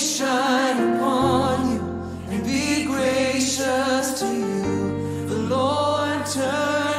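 Men's and women's voices singing a worship song together with vibrato, accompanied by a grand piano whose bass notes change twice.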